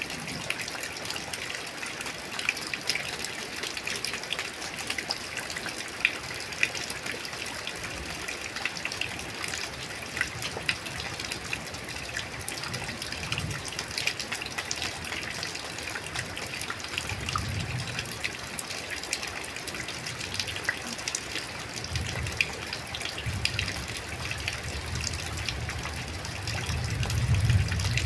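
Light rain falling steadily: a continuous hiss dotted with many small drop ticks, with a low rumble swelling in near the end.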